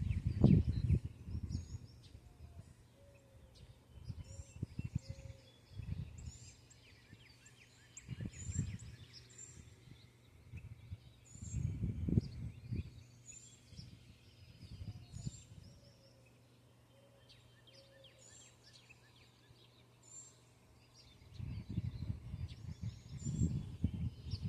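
Backyard birds chirping in repeated short calls, over intermittent bursts of low rumble or rustling that are the loudest sounds, at the start, twice in the middle and again near the end.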